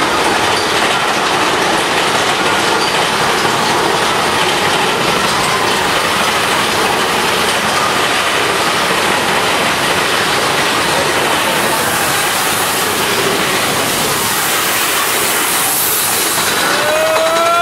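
Mine-train roller coaster cars running along their track, a loud, steady rattling rush.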